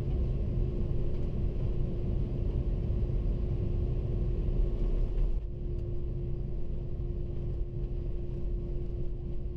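Airbus A330-300 cabin noise heard from a window seat: a steady engine rumble with a constant hum. About five seconds in, the higher hiss drops away and the noise eases slightly.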